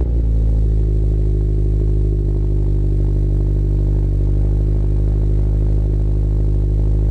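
Toyota GR86's 2.4-litre flat-four idling steadily through its aftermarket Cobra exhaust, just after starting, with a deep, bassy tone.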